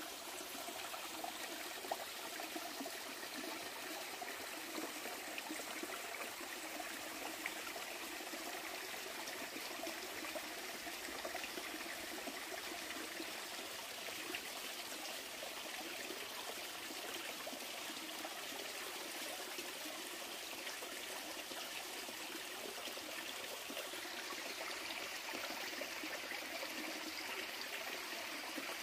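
A small stream trickling steadily over rocks.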